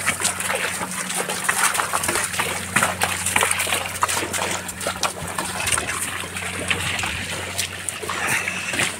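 A carabao's hooves and a loaded cart's wheels sloshing and squelching through deep, wet mud, in a run of irregular splats and knocks.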